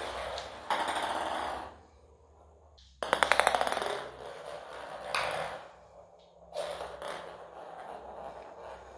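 A kitten playing on a laminate floor, making bursts of scrabbling and clattering, with a quick run of sharp clicks about three seconds in.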